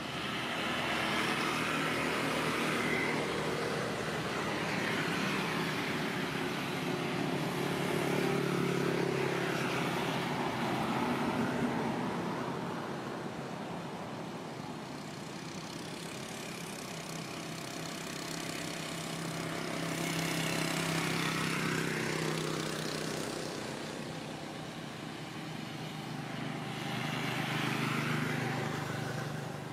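Motor vehicles passing by one after another, each swelling up and fading away over several seconds, with a low engine hum under the later passes.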